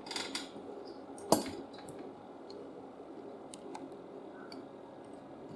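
A few light clicks and taps over quiet room tone, with one sharper click a little over a second in.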